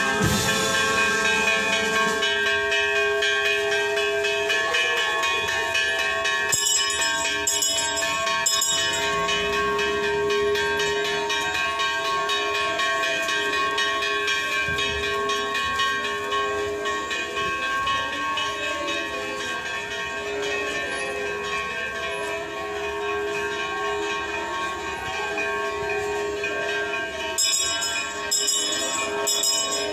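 Church bells ringing continuously, many overlapping bell tones sounding together. Short bursts of high jingling or clattering come in about seven seconds in and again near the end.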